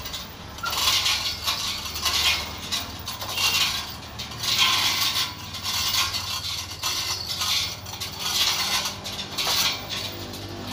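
Hand chain of a manual chain hoist being pulled hand over hand under a heavy load, its steel links clinking and rattling in repeated bursts about once a second.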